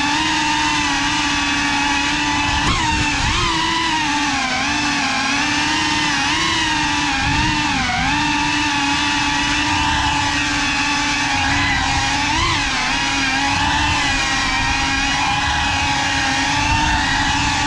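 FPV cinewhoop drone (GEPRC CineLog 35) in flight, its brushless motors and ducted propellers giving a steady whine. The pitch swings up and back down a few times as the throttle changes.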